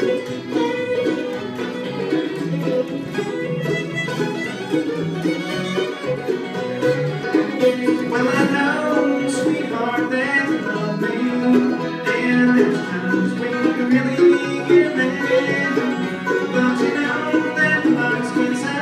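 Live bluegrass band playing an instrumental break with no singing: five-string banjo, acoustic guitar, mandolin, fiddle and upright bass playing together at a steady tempo.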